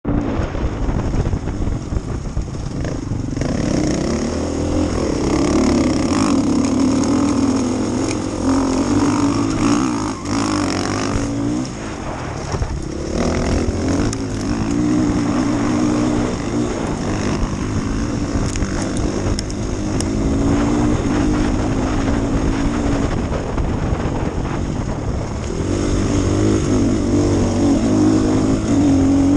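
Enduro motorcycle engine heard from the rider's own bike, revving up and dropping back again and again as it is ridden hard on a stony dirt track.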